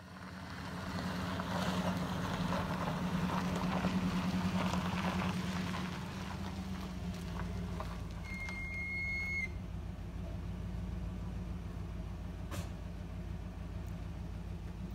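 Pickup truck engine idling with a steady low hum. During the first several seconds a hissing rustle sits over it. About eight seconds in there is a brief flat high-pitched tone, and a single click comes later.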